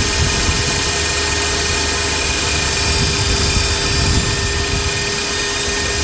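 Meec Tools 2000 W table saw with a 250 mm blade running steadily: a constant motor whine over a loud, even hiss.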